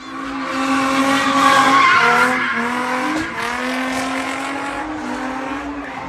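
A car engine held at high revs while its tyres squeal and skid on the road, a sustained, wavering sound lasting several seconds.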